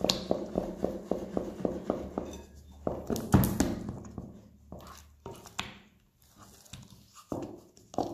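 A spatula beating very wet, 100%-hydration focaccia dough in a glass bowl with quick rhythmic strokes, about five a second. The strokes slow and fade for a few seconds in the middle, then pick up again near the end.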